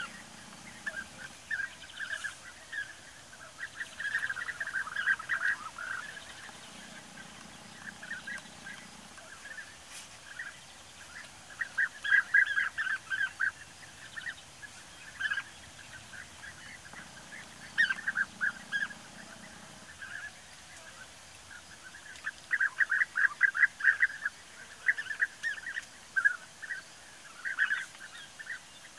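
European bee-eaters calling: repeated bursts of rapid, trilled calls that come and go, several birds together at times.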